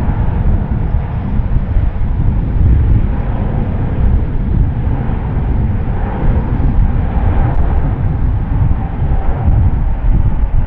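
Airbus A350's twin Rolls-Royce Trent XWB turbofans at takeoff thrust during the takeoff roll: a loud, steady, deep rumble with a faint whine above it.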